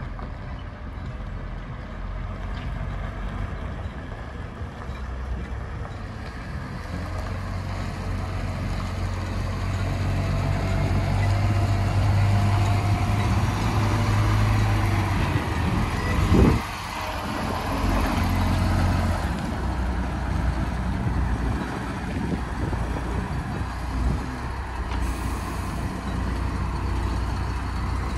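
Demag AC 40 City compact all-terrain crane's diesel engine running as the crane drives up, growing louder as it comes near. About halfway through there is a short, loud burst, after which the engine runs on steadily.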